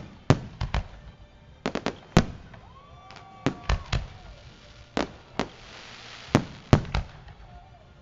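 Aerial firework shells bursting: about fifteen sharp bangs at irregular intervals, some in quick clusters of two or three, with a hissing crackle a little past the middle.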